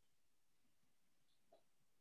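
Near silence: room tone, with one faint brief sound about one and a half seconds in.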